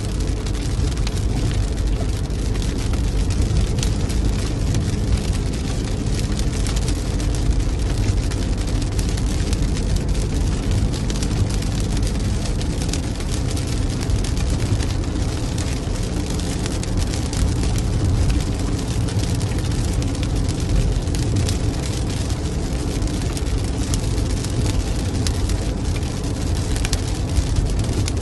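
Steady low road and engine rumble inside a moving car's cabin, with raindrops striking the windshield as many small irregular ticks.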